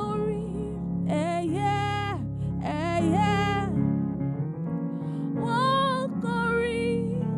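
Slow worship song: a solo voice sings long held notes with vibrato over sustained keyboard chords, in several phrases with short breaths between them.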